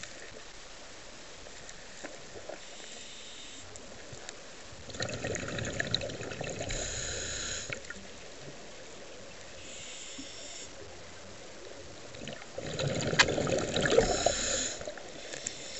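Scuba diver breathing through a regulator underwater: a faint hiss on each inhale, then a louder burst of exhaled bubbles lasting two to three seconds. Two full breaths.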